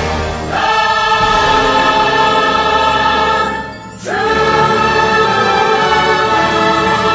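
Choir singing long held chords over an orchestra. The sound thins out briefly about three and a half seconds in, and a new chord swells in about a second later.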